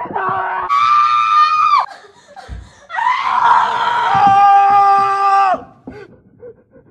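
A person screaming in fright at a scare prank: a high scream held for about a second, then from about three seconds in a longer, lower scream that cuts off sharply.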